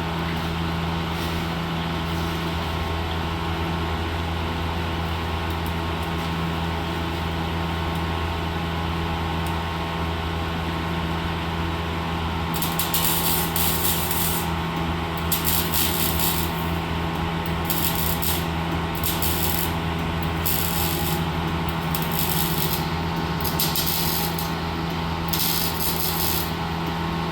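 Steady low machine hum throughout. From about halfway in, short bursts of rasping, scraping tool noise come every second or two: tool work on the exhaust pipe during the muffler install.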